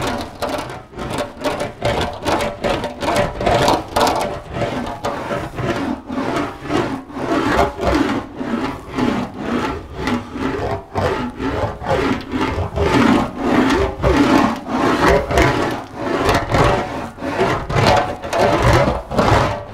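English wheel rolling a sheet-metal car rear guard back and forth in quick, even passes, a rolling rub that swells and fades with each pass. These are single long strokes across the panel to stretch it into its curve, the steady stroke used where no hollow is felt.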